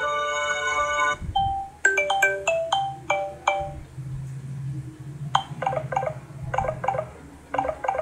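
Samsung Galaxy S6 Edge+ loudspeaker playing stock ringtone previews one after another. A sustained chord-like tune cuts off about a second in, then short bright melodies of struck, marimba-like notes follow in quick runs, with pauses between them as the next tone is selected.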